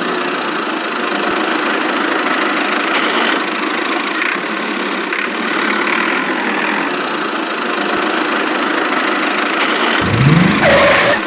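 Small motor of a miniature model tractor/bulldozer running steadily, with a rising tone near the end.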